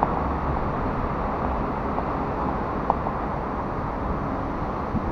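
Steady background rumble and hiss of a station concourse, with a few faint clicks, the clearest about three seconds in.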